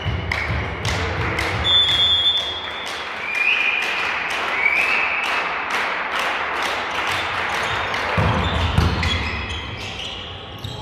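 Indoor volleyball match in a sports hall: a quick, irregular run of sharp claps and knocks over a steady crowd noise, with a few brief high squeaks.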